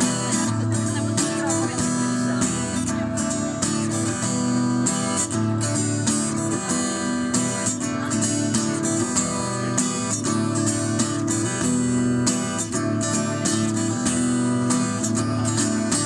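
Instrumental music after the last sung verse: an acoustic guitar strummed steadily, with a full low accompaniment.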